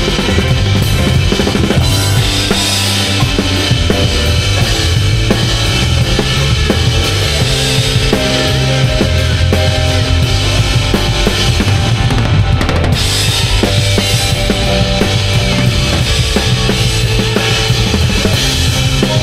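Live rock band playing, with the drum kit up front: bass drum, snare and cymbals driving under the bass and other instruments. The high cymbal wash drops out for a moment about two-thirds of the way in, then comes back.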